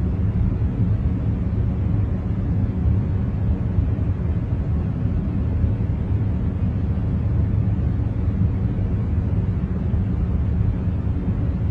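Steady ambient noise track played for concentration, a deep even rumble heavy in the low end, with no change or pattern.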